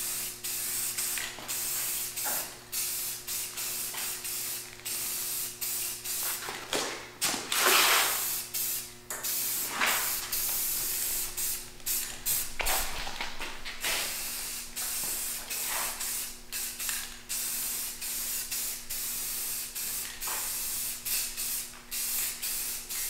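Aerosol spray-paint can hissing in short passes that stop and start many times, laying down a thin first coat. Some passes are stronger than others.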